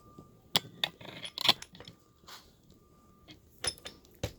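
Lock picks and tension wrench clicking and scraping in the keyway of a Squire 80 mm padlock being picked: a handful of sharp, separate metallic clicks.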